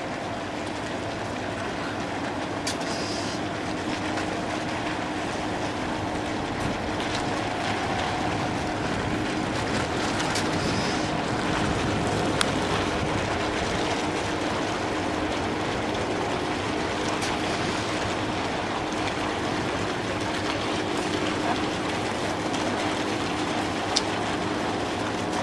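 Steady drone of a river towboat's diesel engines pushing barges at low speed, an even rumble with a few faint ticks.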